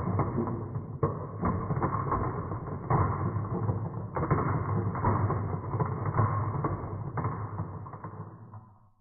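Marbles rolling and clattering down a HABA wooden marble run, a continuous rumble with many small clicks and knocks. It fades out over the last couple of seconds as the marbles finish their run.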